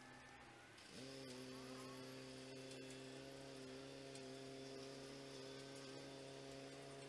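A steady low mechanical hum with evenly spaced overtones. Its pitch glides up and it grows louder about a second in, then it holds steady.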